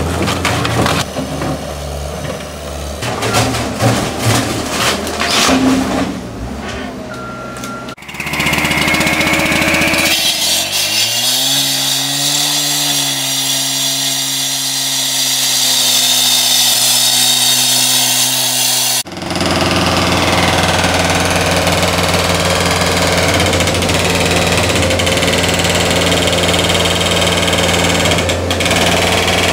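A Caterpillar compact track loader's diesel engine runs while its bucket breaks up the wooden garage wreckage, with sharp knocks and cracks. After a cut, a petrol cut-off saw with a water feed revs up over about two seconds and holds a steady whine as it cuts the concrete slab. After a second cut, the loader's engine runs steadily with its hydraulic breaker attached.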